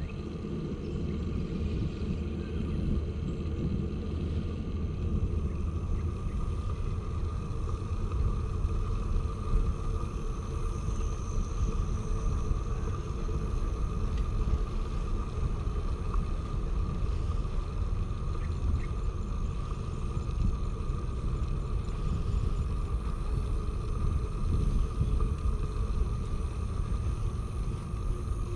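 Steady low rumble of riding a bicycle, wind buffeting the camera microphone with the tyres rolling on the path, and a faint steady hum higher up.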